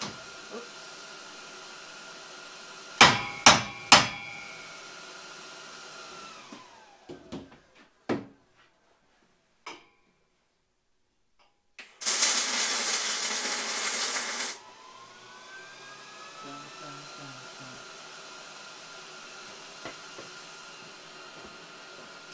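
Hammer blows on steel: three quick ringing strikes, then another a few seconds later. Later a steady rushing hiss runs for about two and a half seconds.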